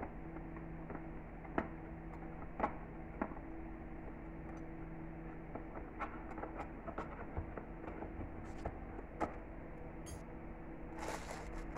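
Light clicks and clinks of stainless-steel spoons, forks and knives being set one at a time into the slots of a cutlery case, at irregular intervals over a steady low hum. A brief rustling near the end.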